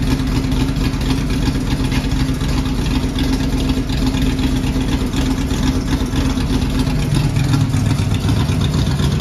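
Ford Ranger's 306 small-block V8, a 302 bored .030 over and fed by Holley Sniper fuel injection, idling steadily through shorty headers and dual pipes with Cherry Bomb Vortex mufflers. Its note shifts lower about seven seconds in.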